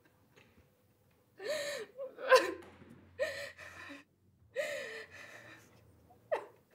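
A person gasping in short, breathy, high-voiced gasps, five or six of them, the sharpest about two seconds in.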